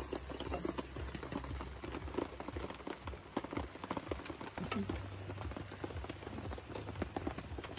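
Rain falling on a tent: many irregular drop taps, over a low steady hum.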